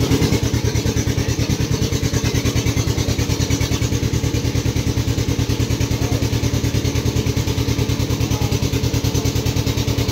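Engine of a river ferry boat running steadily, with a fast, even chugging beat.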